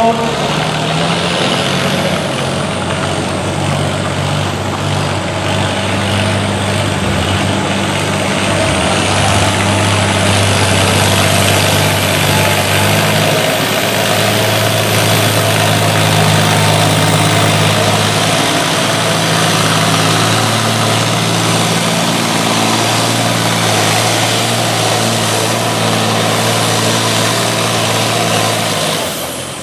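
International Harvester farm tractor's diesel engine running hard under full load as it drags a weight-transfer pulling sled over dirt, with a steady low engine note. The sound falls away about a second before the end as the pull is stopped.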